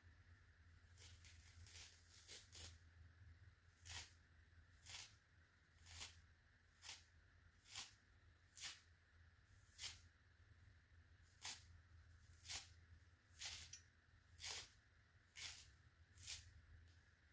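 Blue jelly sponge being ripped apart by hand into small chunks: a quiet, short tearing sound roughly once a second, around fifteen rips in a row.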